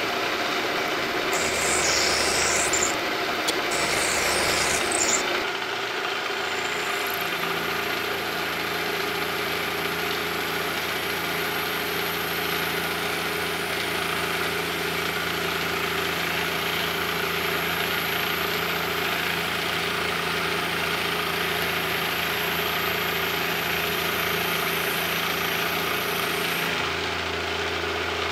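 Milling machine running, its end mill cutting a slot into a bar of 1144 steel: a steady motor hum with the scraping of the cut. The sound changes about five seconds in, from a hissier stretch, when the cut is being sprayed with coolant, to a steadier hum.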